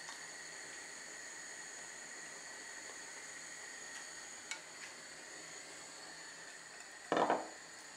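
Sugar syrup boiling in a steel pot, a low steady hiss, with two light clinks about four and a half seconds in as the syrup is ladled into a glass bowl. Near the end there is a short clunk as the bowl is set down on the counter.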